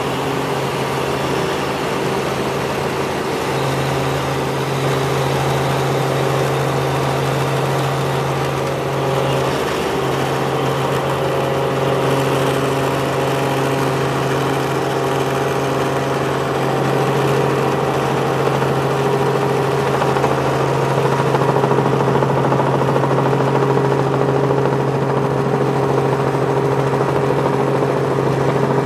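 Helicopter rotor and engine heard from inside the cabin on descent: a steady drone with a low hum and several held tones, growing slightly louder after the middle.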